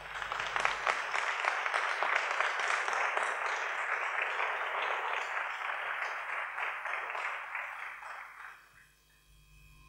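Audience applauding, a dense patter of many hands clapping that swells in at once, holds steady for about eight seconds and fades out near the end.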